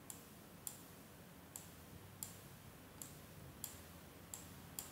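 Faint computer mouse button clicks, about eight in all, coming at a fairly even pace of a little more than one a second.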